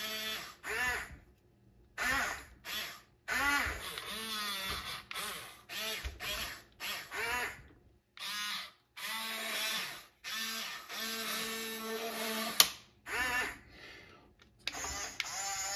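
The small electric motors of a Diecast Masters 1:24 RC Cat 336 excavator whine as the boom, stick and bucket are worked, in a dozen or so short starts and stops. The pitch rises and falls with each move. This is the model's real drive noise, with its engine sound kit switched off.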